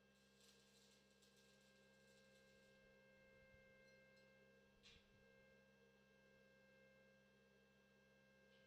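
Near silence: faint steady hum, with one faint click about five seconds in.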